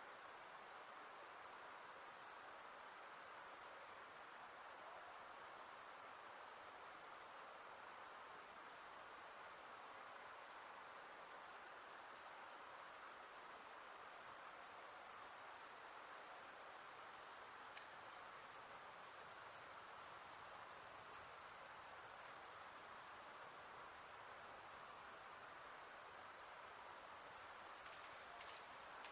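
A steady, high-pitched chorus of crickets trilling without a break, with a faint wash of lower forest background beneath.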